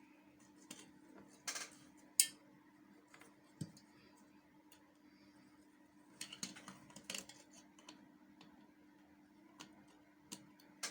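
Small metal clicks and clinks of the bias-foot attachment plates being handled and set into place on an industrial sewing machine: scattered taps, the sharpest about two seconds in, a cluster around six to seven seconds in, over a faint steady hum.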